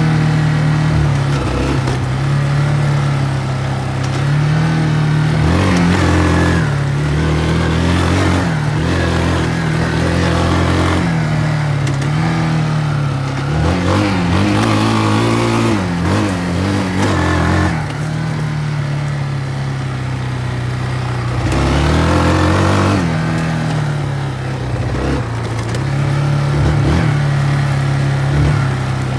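Kawasaki ATV engine running while riding, its pitch rising and falling as it revs up several times, around 6, 9, 15 and 22 seconds in, then settling back to a steady drone.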